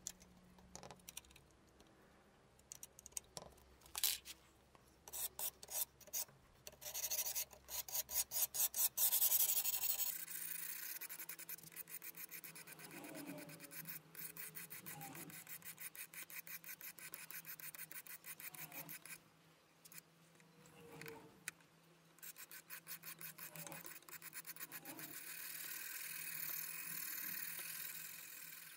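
A sharpening stone on a fixed-angle guided sharpener rubbed back and forth along a knife's edge: a run of repeated rasping strokes, sparse at first and then quick and almost continuous, as the edge is sharpened.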